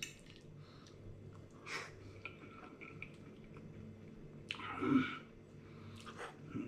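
Quiet chewing of a mouthful of soft refried beans, with a few faint, separate mouth sounds, the loudest about five seconds in.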